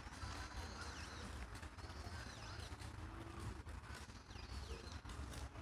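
Birds calling in the park, a few short high whistled notes that fall in pitch, over a low steady rumble.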